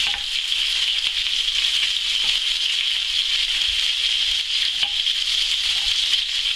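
Oxtail pieces sizzling steadily in hot oil in a frying pan as they brown, with a few soft knocks of a knife cutting onions on a wooden chopping board.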